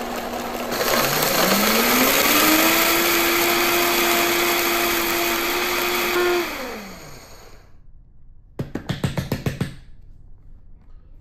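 Vitamix high-speed blender grinding dried chili peppers and whole spices into powder. The motor runs at a low speed, rises in pitch to full speed about a second in, holds steady for several seconds, then winds down. Near the end there is a brief burst of rapid rattling.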